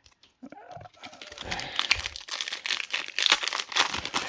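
Foil trading-card pack wrappers crinkling and crackling as they are handled, a dense run of crackles that starts about a second in.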